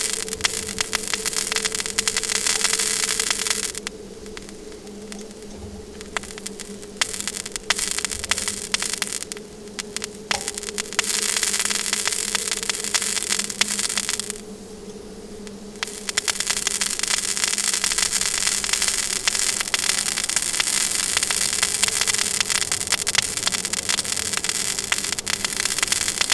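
Dense sputtering crackle and hiss of dry lakebed mud melting into glass under a Fresnel lens's focused point of sunlight, throwing sparks, over a steady low hum. The crackle dies down three times for a second or two, then comes back.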